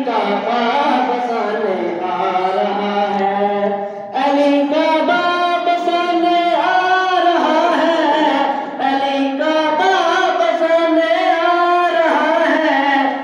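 A boy chanting a devotional recitation into a microphone, in long held melodic lines that bend in pitch, with a short break about four seconds in.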